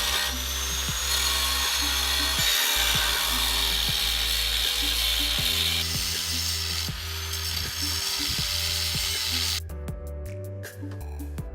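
A power tool cutting stock for brackets: a loud, steady, high-pitched grinding noise that cuts off suddenly near the end. Background music with a steady beat plays underneath.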